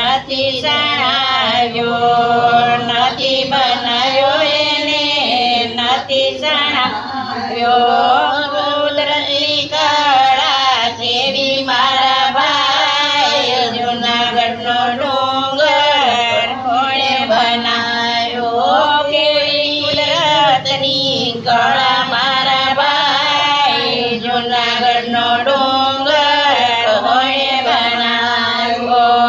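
Elderly women singing an old Gujarati devotional folk song (satsang geet), in continuous melodic phrases.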